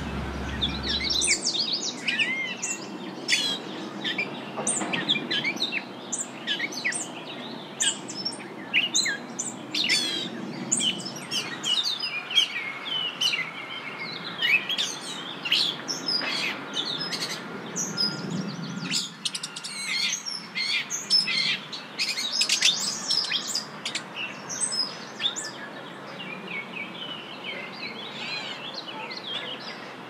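Several songbirds singing in a busy chorus of quick high chirps and warbled phrases, with notes overlapping almost without pause.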